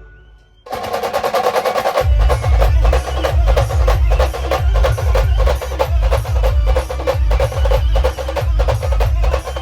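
Live band music with fast, dense drumming: after a brief lull, the band comes back in under a second in with rapid drum strokes over a melody line, and heavy bass drum beats join about two seconds in.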